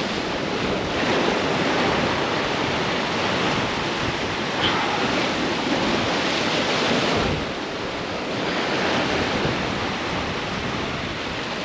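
Sea surf surging and breaking against rocks below, a steady rushing wash that eases slightly about seven seconds in.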